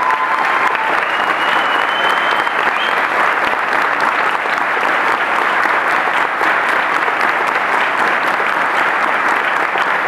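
Audience applauding steadily, a dense even clapping, with a faint high held note lingering for the first few seconds.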